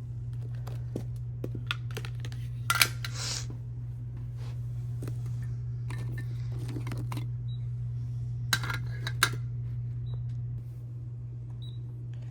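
Light clatter and clicks of small cups and dishes being handled, with the sharpest knocks about three seconds in and twice near the end, over a steady low hum that drops away shortly before the end.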